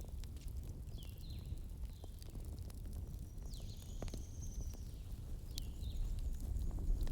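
Campfire crackling, with scattered sharp pops over a steady low rumble. Birds chirp repeatedly in the background, in short falling calls.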